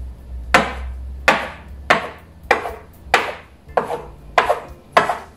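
A metal bench scraper chopping a thin rope of potato gnocchi dough into small diagonal pieces, its blade knocking on the worktop with each cut. About eight sharp knocks in steady succession, roughly one every two-thirds of a second.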